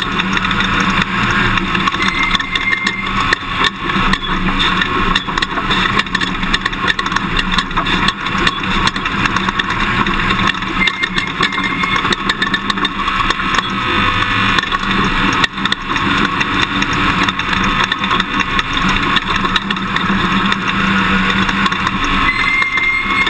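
Toyota Tundra pickup driving off-road over dirt, its engine running under steady road and wind noise, with frequent knocks and rattles.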